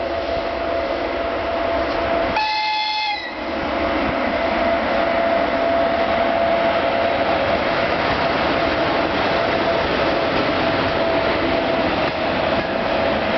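ChS4 electric locomotive and its passenger train running past, with steady rolling noise and a high whine throughout. About two and a half seconds in, the locomotive gives a short horn blast of under a second.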